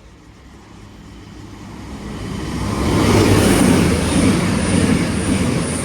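Avanti West Coast Voyager diesel train passing through at speed. The noise swells from about a second and a half in, peaks around the middle and fades toward the end.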